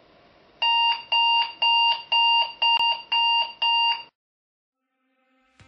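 Digital alarm clock beeping: seven electronic beeps, about two a second, that stop suddenly about four seconds in.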